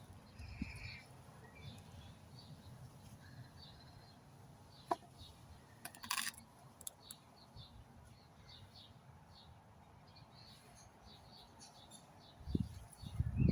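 Small birds chirping on and off, with a sharp click about five seconds in and a short rustle about a second later.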